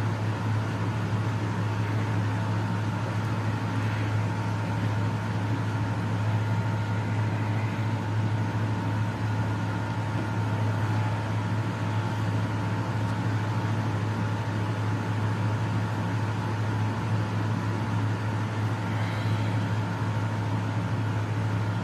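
Steady hum and whir of an electric box fan running. Faint chewing of a rubber Kong toy by a husky puppy comes through now and then.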